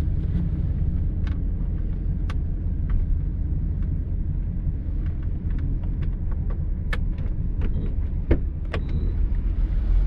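A heavy machine's engine running with a steady low rumble while a scrap car is being lifted, with scattered sharp metal clanks and creaks, the loudest about eight seconds in.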